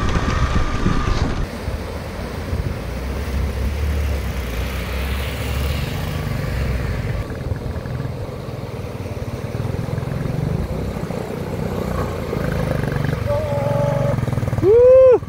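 Single-cylinder Royal Enfield motorcycle engine running with a low, steady rumble as it rides through a shallow river crossing, after a moment of engine and trail noise from a motorcycle on rough ground. Near the end comes a short, loud call that rises and falls in pitch.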